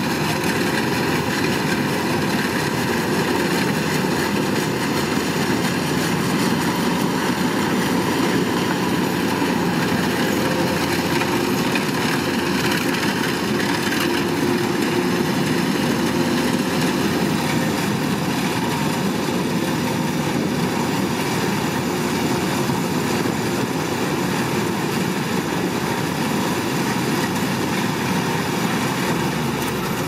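Kubota DC-105X combine harvester running steadily as it cuts rice: diesel engine and threshing machinery making an even, unbroken drone.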